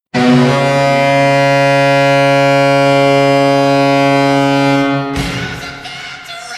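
Ice hockey arena goal horn giving one long, steady blast with a low chord of several tones, signalling a home goal. About five seconds in, the horn cuts off and a sudden loud burst of noise takes over and dies away.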